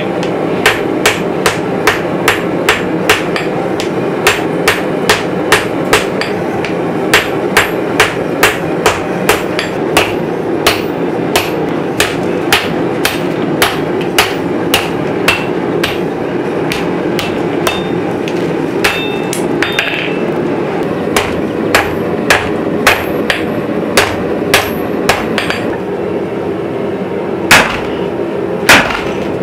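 Hand hammer striking red-hot san mai steel on an anvil: quick, even blows about two a second over a steady rushing noise, with a few louder, slower strikes near the end.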